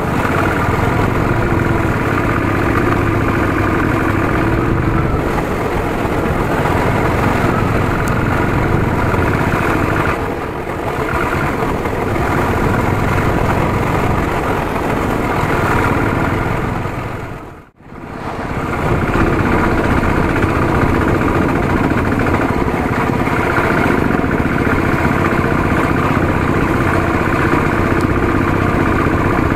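Royal Enfield single-cylinder motorcycle engine running steadily under way. The sound drops out sharply for a moment a little past halfway, then returns.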